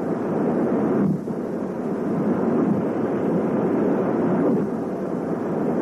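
Steady, loud vehicle noise, dipping briefly about a second in and again after four seconds.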